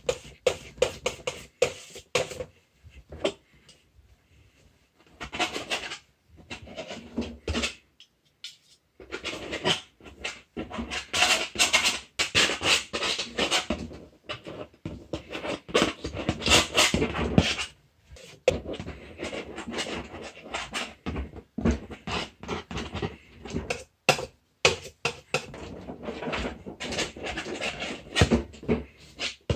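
Metal palette knife scraping paint on a palette and then dragging it across a stretched canvas, in quick, irregular scratchy strokes with short pauses.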